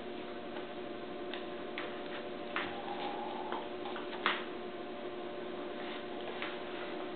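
A steady hum with a scatter of short sharp clicks, the loudest about four seconds in.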